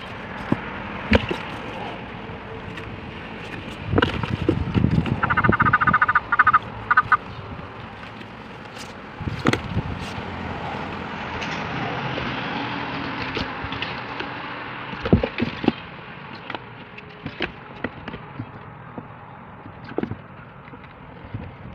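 Toads in a cardboard box: one gives a pulsing trilled call for about two seconds, about five seconds in. Scattered taps and scrapes sound against the cardboard.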